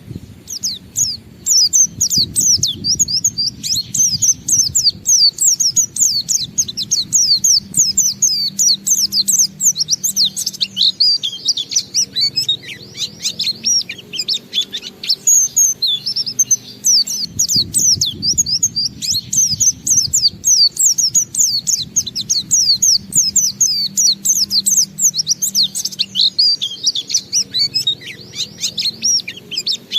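White-eye (pleci) singing its long 'ngalas' song: a fast, nearly unbroken stream of high, sliding chirps and twitters, with barely a pause.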